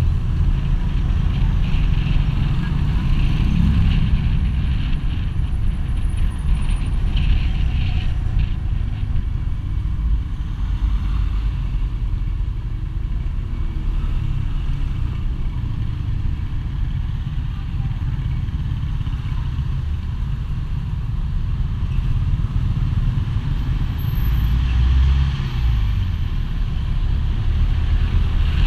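Motorcycle riding slowly in street traffic: the bike's engine running under a steady low rumble of wind on the microphone.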